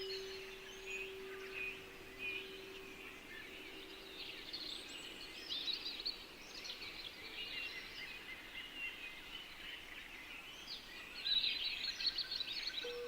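Songbirds chirping and twittering, busiest near the end, over a steady low tone that fades out about four seconds in. A slightly higher steady tone begins just before the end.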